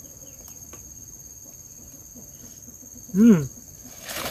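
Steady high-pitched drone of insects, crickets or cicadas, running throughout. About three seconds in there is a short, loud voice-like sound that rises and falls in pitch, and a brief rustle near the end.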